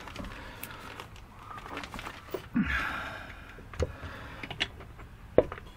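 Scattered metallic clicks and knocks as a Suzuki RG500 gearbox cassette is worked by hand out of the crankcase, with a short scrape about two and a half seconds in. The sharpest knock comes near the end.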